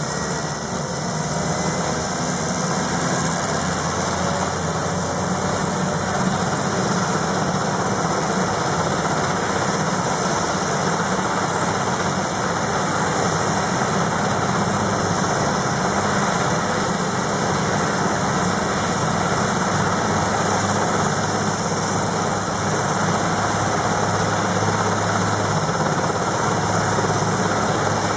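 Sikorsky S-61N helicopter running steadily, its twin turboshaft engines and rotors making a constant noise with a thin high turbine whine over it.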